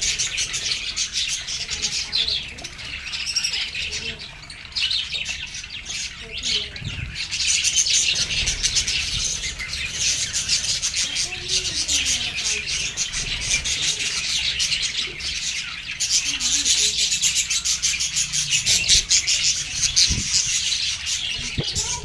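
A flock of budgerigars chattering and warbling without a break, many overlapping quick chirps, with a wing flutter now and then.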